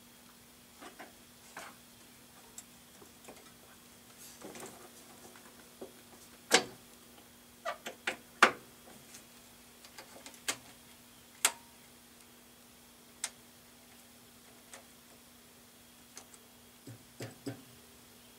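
Irregular clicks and knocks of hands and parts being handled while working on a jukebox's light wiring, two sharper knocks loudest near the middle, over a steady low electrical hum.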